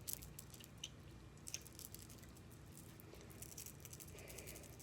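Faint, scattered clicks and light rattles of small plastic fidget toys being picked up and handled, over a low room hum.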